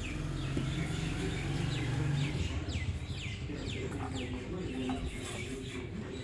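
A bird chirping: a run of quick downward chirps, a few a second. It starts over a low steady hum, which stops about two seconds in.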